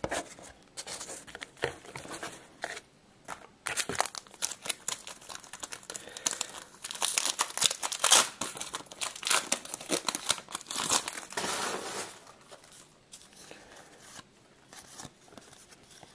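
Baseball card pack's wrapper being torn open and crinkled by hand: a dense run of crackling and tearing, thickest from about four to twelve seconds in.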